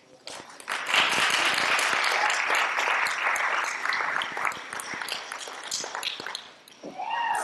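Audience applauding. The clapping swells quickly about a second in and dies away near the end, where a voice briefly starts up.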